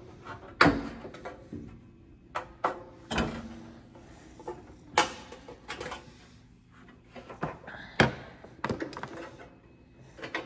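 About six sharp metal knocks and clinks, spread irregularly, the loudest about a second, five seconds and eight seconds in, as an Allen wrench and loose metal parts strike the inside of an espresso machine's sheet-metal housing while a bolt is loosened.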